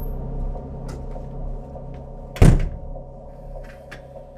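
A door shutting with a single heavy thud about two and a half seconds in, over a low steady drone.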